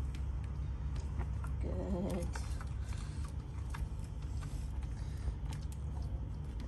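A dog's paws and claws tapping and clicking as it shifts on inflatable rubber balance pads and steps onto brick pavers, over a steady low rumble. There is one brief pitched sound about two seconds in.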